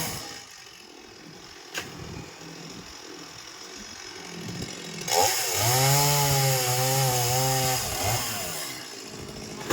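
Chainsaw cutting through tree wood: running quieter for the first few seconds, then revving up to full speed for about three seconds before easing off again.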